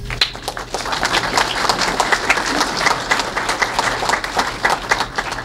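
Audience applauding, with many hands clapping together. The applause starts right away and dies down near the end.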